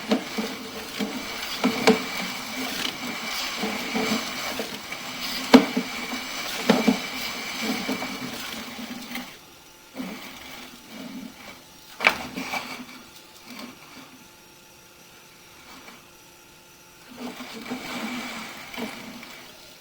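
Sewer inspection camera's push cable being fed through the sewer line: a steady whirring with scattered knocks and clicks, which dies down for a few seconds after the middle and then picks up again.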